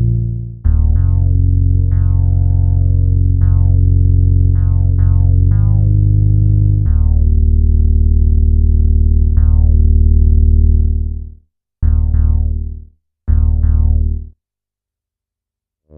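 Akai Timbre Wolf analog synthesizer playing a bass line: held low notes, each with a bright, quickly closing filter sweep on the attack. Near the end it plays two short stabs, then stops.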